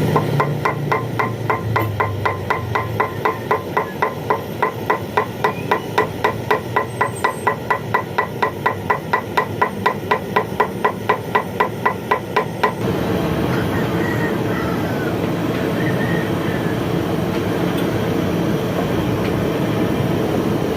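Rapid, even metallic tapping, about three to four ringing strikes a second, which stops about thirteen seconds in and leaves a steady background noise.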